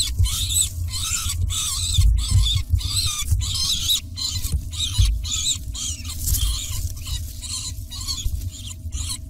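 Peregrine falcon calling in alarm, a harsh call repeated evenly about two to three times a second, over a low rumble.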